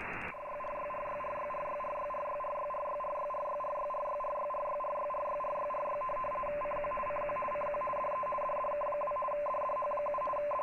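Radio weather fax signal coming through a software-defined radio receiver: a pair of steady tones, one lower and one higher, keyed rapidly as the chart is sent, over a hiss of band noise. The tones come in a moment after the start, replacing plain receiver noise.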